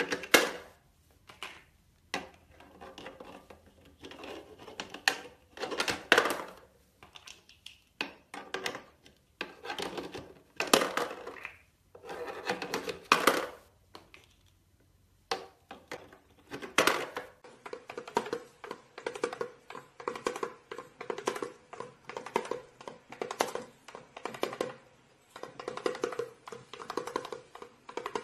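Plastic shapes knocking, rattling and dropping into a toy shape-sorter box as a parrot pushes them through the lid, in irregular clatters with short pauses. From about seventeen seconds in, a faster, even run of quick taps over a steady tone takes over.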